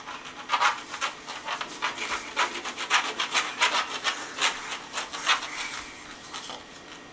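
A child scribbling on a refrigerator door, the colouring tip rubbing across the surface in quick strokes, about three a second, that stop shortly before the end.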